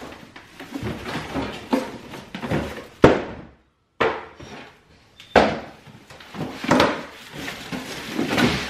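Plastic food-storage containers clattering and knocking together, with rustling of their plastic wrapping, as they are unpacked; several sharp knocks stand out. The sound breaks off to silence for about half a second a little past three seconds in.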